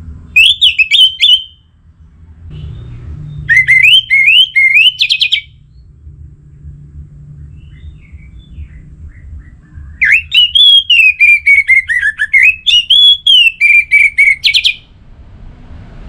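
Orange-headed thrush singing: three loud spells of rapid, warbling notes that jump up and down in pitch. The first two are short, and the last runs for about five seconds.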